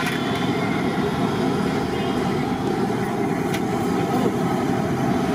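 Small batter fritters (punugulu) deep-frying in a large kadai of hot oil: a steady sizzle and bubbling over a steady low rumble, with a light click about three and a half seconds in.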